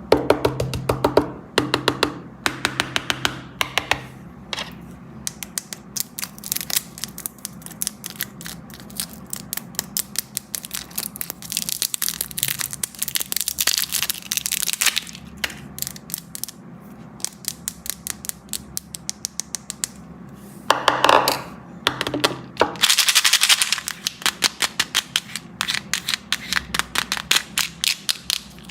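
Close-miked candy ASMR: rapid runs of sharp cracks and crackles as candy is cracked and crunched. The crackling is densest about halfway through and again about three quarters through.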